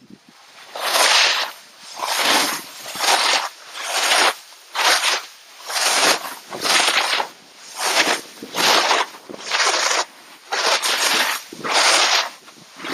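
Snowboard edges scraping through snow on each quick turn down a mogul run, a rhythmic series of hissing scrapes about one every three-quarters of a second.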